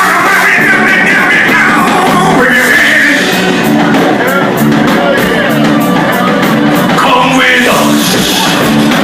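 A live band playing loud rock music with a steady beat.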